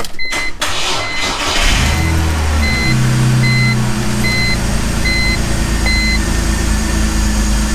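BMW E46 330ci's 3.0-litre straight-six cranking on the starter, catching about a second and a half in, then settling into a steady idle that is a little rough. A warning chime beeps about once every three-quarters of a second until about six seconds in.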